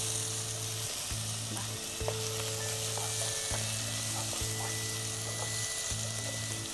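Minced chicken and onions sizzling in oil in a pot, stirred with a wooden spatula that gives several scrapes and taps against the pot. Soft background music with held notes plays underneath.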